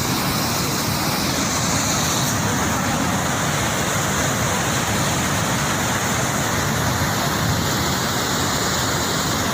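Dhuandhar Falls, a large waterfall on the Narmada River, as a steady, loud rush of falling water.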